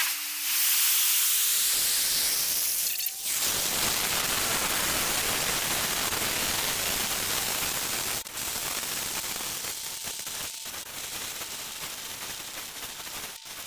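Rocket engine exhaust noise from SpaceX Starship SN8's three Raptor engines at liftoff and ascent: a steady, hiss-like roar, played back sped up. A tone rises in pitch over the first three seconds, and the noise cuts out abruptly for a moment about three, eight, ten and a half and thirteen seconds in.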